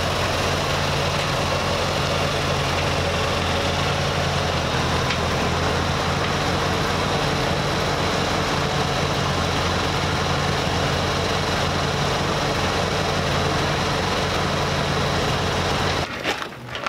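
Farm tractor engine running steadily with a low hum, cutting off suddenly near the end.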